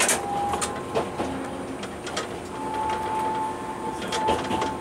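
Tokyu Setagaya Line tram under way. A whine from its motors rises slightly in pitch, breaks off about a second in, and comes back as a steady tone about halfway through. Wheels click and knock over the rails throughout.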